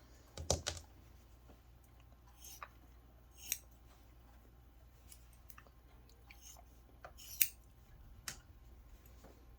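Scissors snipping fabric, trimming the excess from stitched corners: a handful of short, scattered cuts with quiet gaps between, the sharpest about half a second in and near the end.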